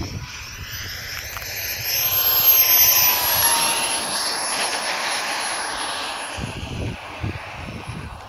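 Wren 54 model jet turbine whining at reduced power as the RC jet flies past on a landing approach, growing louder to a peak about three seconds in, where its pitch drops, then fading away.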